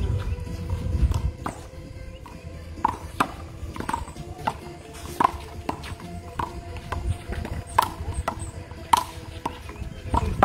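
One-wall handball rally: the small rubber ball is smacked by hand, strikes the wall and bounces on the court. This makes a string of sharp pops, roughly one every half second to a second.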